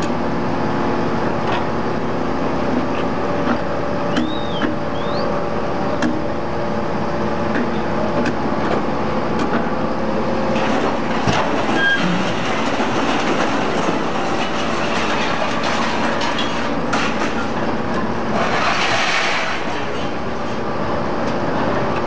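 Hydraulic scrap-metal baler running: a steady hum from its hydraulic pump unit, with scattered clanks of metal and a short hiss near the end.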